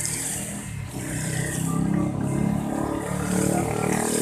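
A motor vehicle engine running, its pitch wavering up and down and growing louder about a second in, over a steady high hiss.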